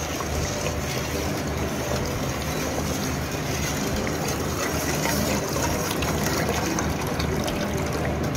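Watery red drink being stirred with a metal ladle: liquid swishing and sloshing steadily, over a low steady hum.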